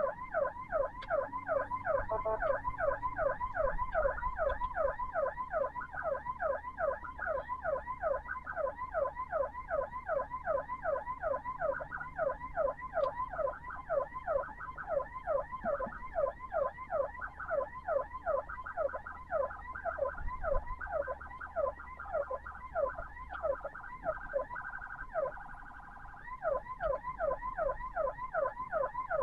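Ambulance siren on a fast yelp: rapid falling pitch sweeps repeating about three times a second, with a brief break into a steady tone near the end before the yelp resumes. A low vehicle hum runs underneath for most of it.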